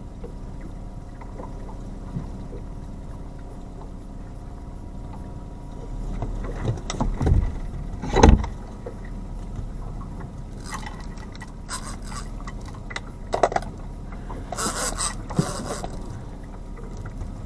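Outboard engine running steadily at trolling speed, with two heavy knocks about seven and eight seconds in as the rod is taken from its holder. After that come repeated bursts of high rasping from the big-game reel's drag as a hooked amberjack pulls line, the longest near the end.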